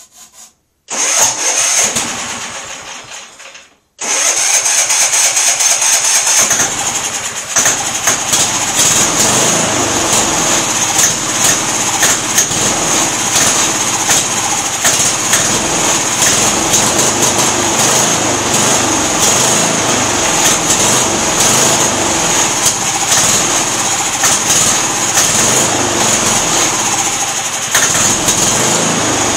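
MTD lawn tractor engine being started. A loud burst about a second in fades out, then about four seconds in the engine catches and runs steadily with a constant high whine. It keeps running only on carb cleaner sprayed into the carburetor, because no gas is getting through its clogged fuel filter.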